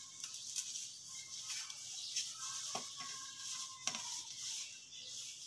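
Faint scraping of chrome shower fittings being screwed together by hand, a nut threaded onto a shower rod, with two light metal clicks about three and four seconds in.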